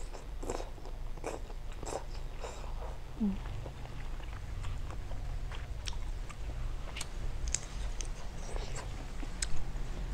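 A person biting and chewing half-cooked shrimp in lime-chili dressing close to the microphone, with irregular wet smacks and clicks of chewing. A sharper, louder click comes near the end.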